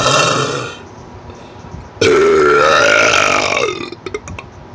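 A person's deliberate burp, loud and long, starting about two seconds in and lasting nearly two seconds with a wavering pitch. A shorter noisy sound comes just before it, at the very start.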